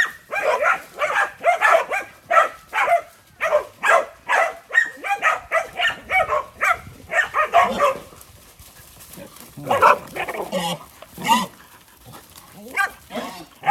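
Working farm dogs barking in a rapid, continuous run for about eight seconds, then a few scattered barks, as they work the horses.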